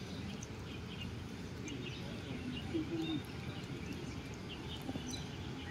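Outdoor ambience: steady low background noise with scattered faint, short bird chirps.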